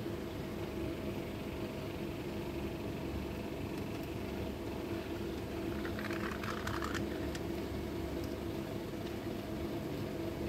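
Steady low machine hum holding a few even tones, unchanged throughout, with a short rustle and a few clicks about six seconds in.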